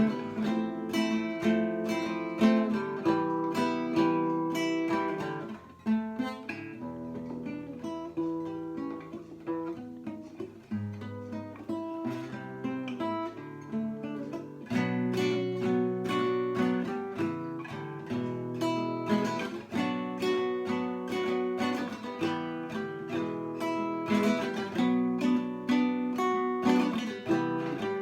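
Solo acoustic guitar playing an instrumental arrangement, picked notes and chords. It turns softer about six seconds in and fills out again about halfway through.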